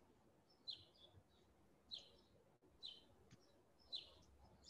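Near silence, with faint, short, high-pitched chirps about once a second.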